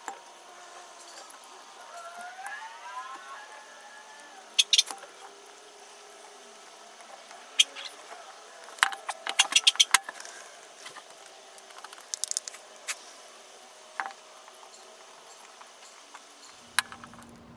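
Metal parts of a 1930s Goodell-Pratt hand drill clicking and clinking as they are fitted back together by hand: scattered sharp clicks, with a quick run of about half a dozen near the middle.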